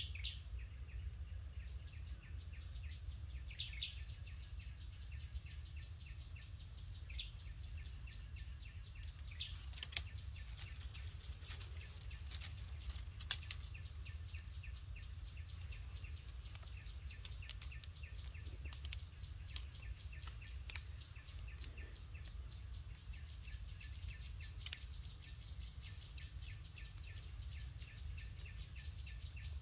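Tropical forest ambience: steady insect chirring with a few bird chirps over a low, steady rumble, and a flurry of small crackles and clicks about ten to thirteen seconds in.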